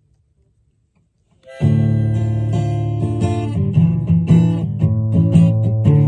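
Near silence, then acoustic guitar strumming starts abruptly about a second and a half in and goes on as chords with picked notes.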